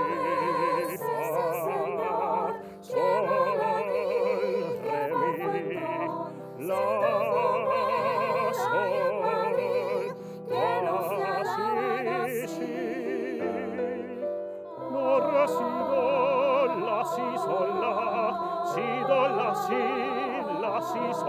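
Male singer performing a zarzuela song in operatic style with strong vibrato, in phrases broken by short pauses for breath, over a piano accompaniment.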